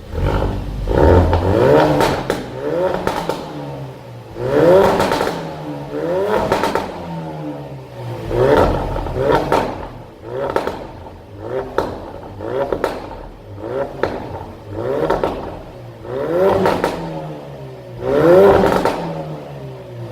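Ford Focus RS MK3's 2.3-litre turbocharged four-cylinder revved repeatedly while standing: about a dozen quick blips, each rising and falling, with exhaust crackles and pops as the revs drop.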